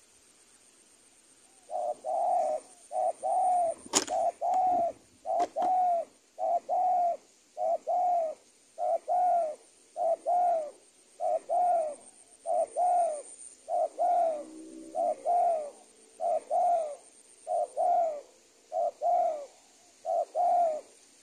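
Spotted dove (tekukur) cooing: a long run of low, slightly falling coos, close together, that starts about two seconds in. Two sharp clicks sound between the coos near the start.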